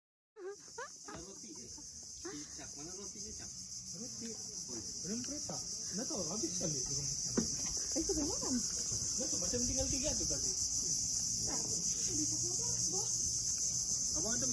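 A steady, high-pitched insect chorus, shrill and unbroken, growing gradually louder, with indistinct voices of people talking underneath.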